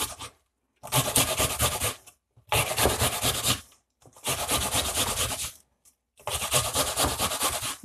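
Onion being grated on a stainless steel box grater: rapid rasping strokes in four runs, with short pauses between them.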